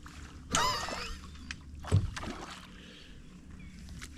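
Sounds of a small fishing boat on the water: a short noisy burst about half a second in, then a sharp knock on the hull about two seconds in, over a low steady rumble.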